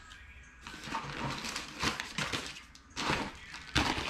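Paper packing material rustling and crinkling as it is handled, with scattered light knocks; the sharpest rustle comes near the end.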